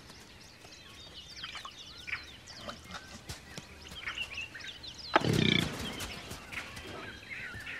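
Small birds chirp in the background, and about five seconds in one sudden, loud, short call from a large animal breaks through.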